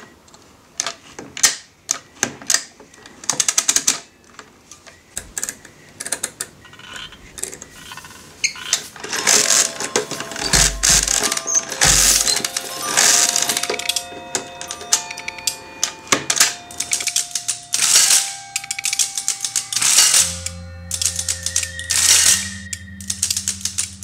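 Clicking and clattering of mechanical calculating machines, with music coming in about nine seconds in as held notes, and a deep low note joining near the end.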